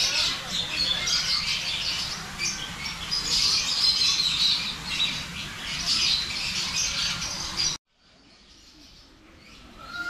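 Many aviary birds calling together in a dense, continuous chorus of chirps and calls, which cuts off suddenly about three-quarters of the way through.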